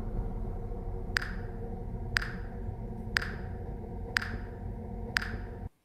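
Electronic click track ticking five times, about once a second, over a steady low hum, then everything cuts off suddenly near the end. It is the performers' exposed click track counting the five seconds until the piece ends.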